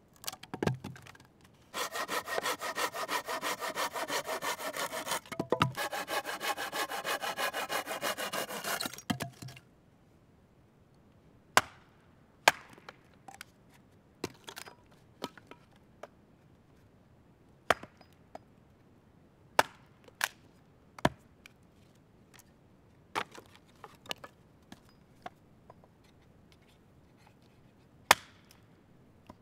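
Wood being sawn with quick, even strokes for about seven seconds, then stopping. After a short pause, about a dozen sharp single axe strikes into wood on a chopping stump, a second or two apart, as the wood is split.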